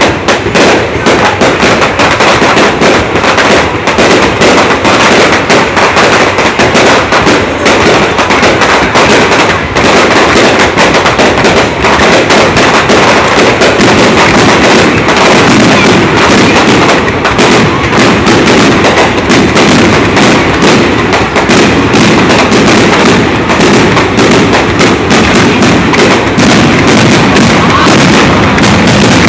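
Fireworks display: a dense, continuous run of bangs and crackling, very loud throughout.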